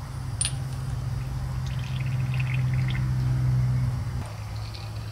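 Motorcycle rear shock's piston and shaft being worked down into its oil-filled body: a sharp click about half a second in, then a few faint high squeaks, over a low steady hum.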